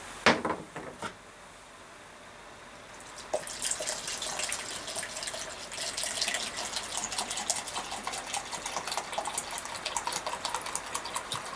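A knock and a smaller click near the start, then liquid splashing steadily into a cup from about three seconds in as the cup is filled.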